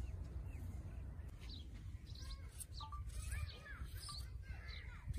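Small birds chirping and twittering, a quick run of short calls from about two seconds in, over a low steady rumble.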